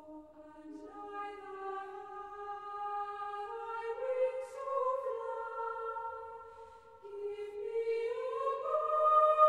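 Slow music of long held notes that move in small steps, two parts sounding together, growing louder and stepping up in pitch near the end.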